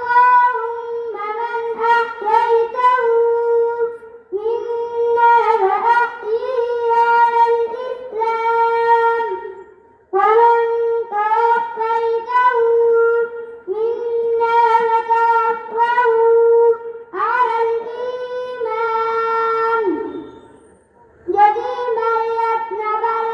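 A boy's high voice chanting into a microphone, carried over a sound system: long, held melodic phrases with short pauses for breath between them.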